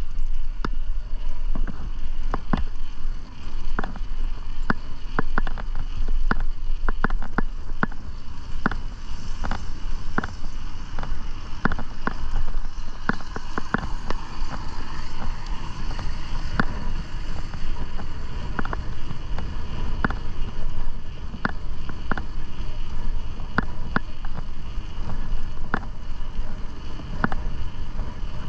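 Mountain bike riding on a paved trail: a steady rush of wind on the microphone and tyre rumble, with irregular sharp clicks and rattles.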